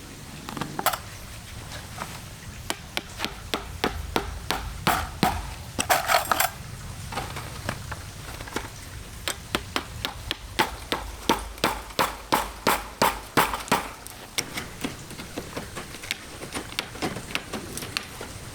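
Hand hammering: many sharp, quick knocks, scattered at first, then a steady run of about three strikes a second through the middle before thinning out again.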